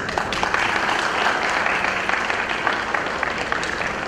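Audience applauding, starting suddenly and easing off a little toward the end.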